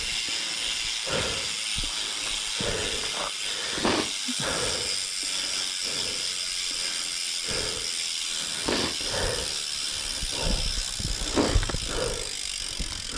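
Commencal Meta HT hardtail mountain bike rolling down a dirt trail: a steady hiss of tyre and wind noise, broken by irregular knocks and rattles from bumps.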